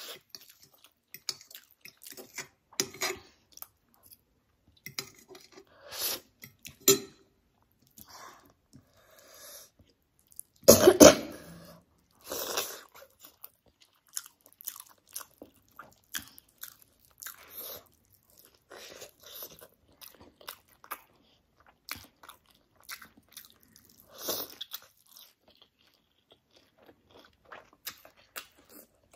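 A person chewing and eating spicy noodles and fried egg, with wet mouth sounds and small crunches, and a cough about eleven seconds in, the loudest sound.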